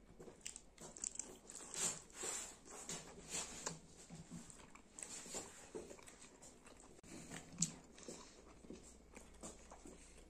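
A person chewing a mouthful of skin curry with rice, eaten by hand: faint, irregular clicks and smacks of the mouth working on the food.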